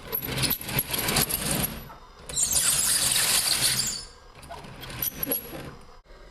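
1/14 scale hydraulic RC bulldozer, a Komatsu D65PX replica, working: two loud bursts of hissing, whirring noise, the first lasting under two seconds and the second from about two and a half to four seconds in, then fainter.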